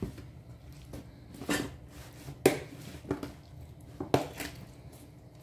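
A metal spoon clicking and scraping against a plastic tub while stirring seasoned raw chicken pieces: a handful of irregular short knocks.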